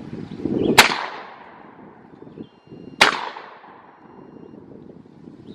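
Two shotgun blasts about two seconds apart, 3.5-inch magnum double-aught buckshot loads, each followed by a short fading echo.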